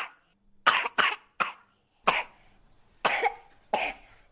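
A person coughing repeatedly, about seven short coughs in quick clusters. It is a wet, productive cough, the kind that brings up mucus.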